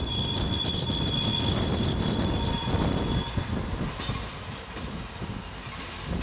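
T44 diesel-electric shunting locomotive and a flat wagon rolling slowly through curved yard track, the wheels squealing in a steady high two-tone whine for about the first half, fainter again near the end, over the low rumble of the locomotive's diesel engine.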